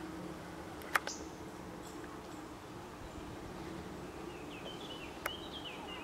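Faint outdoor ambience with a steady low hum, two sharp clicks, and a run of short high chirps in the last second and a half.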